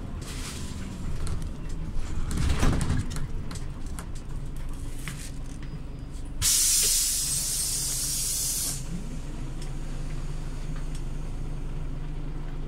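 Scania OmniLink CL94UB city bus running with a low, steady engine drone; about six seconds in, a loud hiss of compressed air released from its pneumatic system lasts about two seconds and cuts off sharply.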